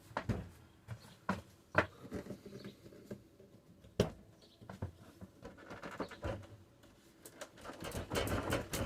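Scattered light knocks and rattles, growing into a denser clatter near the end, as the old Dometic refrigerator is shaken in its motorhome cabinet to see whether it has come loose.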